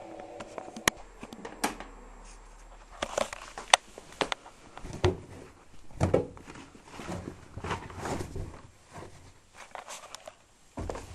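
Privileg Sensation 9415 washing machine making a series of irregular clicks and knocks over a faint low hum.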